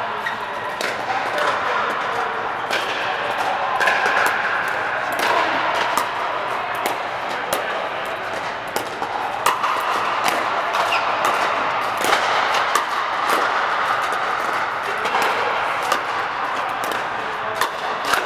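Pickleball paddles hitting plastic pickleballs, many sharp pops at irregular intervals from the near court and the courts around it, over a steady hubbub of players' voices in a large air-supported dome.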